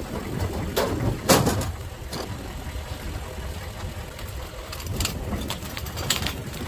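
6.5 turbo diesel truck engine idling with a steady low rumble, with several sharp knocks and clunks over it, the loudest about a second in.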